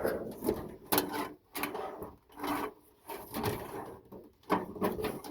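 Irregular clattering, rustling and sharp clicks of hand work on old wiring in a 1961 Ford F100's engine bay, unwanted wires being pulled and handled.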